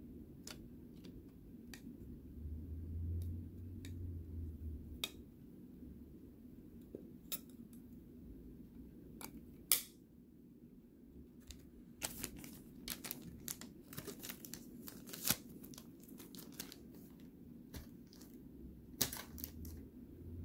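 Faint, scattered clicks and rustles of trading cards and their packaging being handled, growing busier about halfway through, with one sharper click near the middle.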